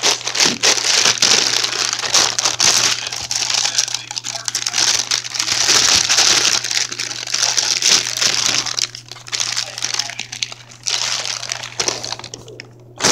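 Packaging being unwrapped and crumpled by hand: a busy run of crinkling and rustling with many small crackles, easing off briefly about ten seconds in before starting again.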